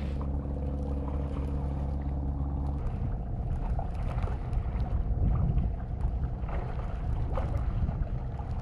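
A boat engine droning steadily at a low pitch, which stops abruptly about three seconds in, leaving a fainter steady hum.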